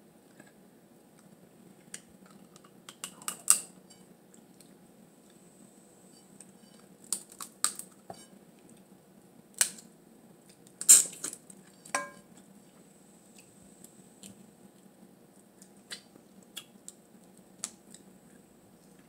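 Boiled blue crab shells being cracked and picked apart by hand: scattered sharp cracks and clicks every few seconds, the loudest about eleven seconds in, over a low steady hum.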